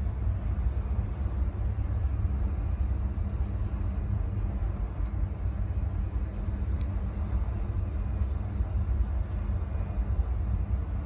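Coastguard search-and-rescue helicopter hovering over the sea: a steady low rotor and engine rumble.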